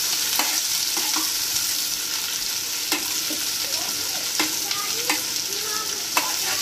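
Chopped karonda, onion and green chillies sizzling in mustard oil in a kadhai over a lowered gas flame while a steel spatula stirs them, with a few sharp clinks of the spatula against the pan.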